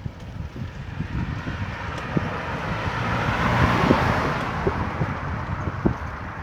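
A car drives past, its road noise swelling to a peak about four seconds in and then fading away.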